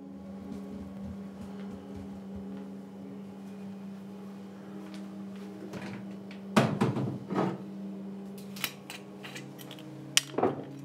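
A steady low hum under a cluster of sharp knocks and clatters about two-thirds of the way through, then a few more sharp knocks near the end.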